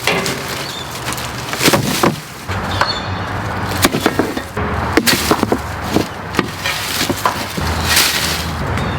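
Wood cracking and knocking in a series of sharp, irregular hits over a steady low hum, typical of cutting branches with a chainsaw.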